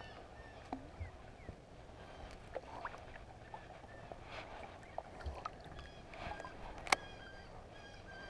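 Faint handling of a fishing rod and reel in a kayak: scattered soft clicks and knocks, with one sharp click about seven seconds in, over a low steady background with short high chirps.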